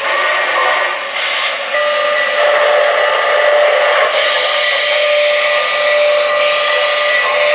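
Sound system of an O-gauge Norfolk & Western J-class 4-8-4 model steam locomotive hissing steam in loud spells, with a long steady whistle coming in about two seconds in and holding on.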